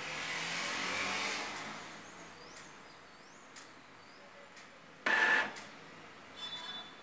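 Epson L3210 ink-tank printer running its head-cleaning cycle, with mechanism noise that swells and fades over the first two seconds and then goes on quietly. A short loud mechanical burst comes about five seconds in. The cleaning station is pumping ink through the print head into the waste pad to clear air from the lines.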